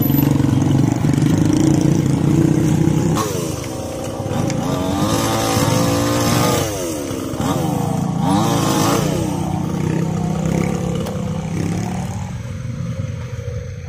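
Small motorcycle engines running as they ride slowly past close by. In the middle an engine revs up and falls back twice, a rising then falling whine each time.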